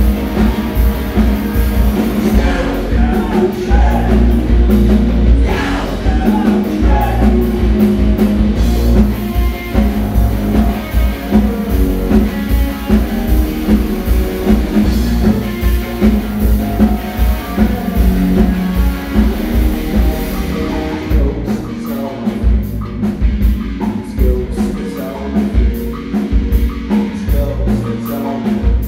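Live rock band playing: electric guitars, bass guitar and drum kit, with a male singer. About two-thirds of the way through, the band drops into a sparser section where the drum hits stand out.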